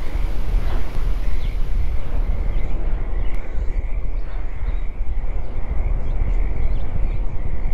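Loud, steady rumbling noise with a constant thin high tone running through it; a few faint short chirps come in after the first few seconds.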